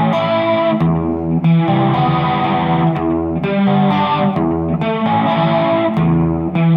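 Music: electric guitar played through effects, sounding sustained chords that change about every second and a half.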